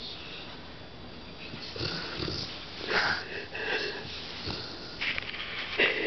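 Pit bull snoring in its sleep, wheezy breaths coming in irregular bursts that grow louder from about two seconds in.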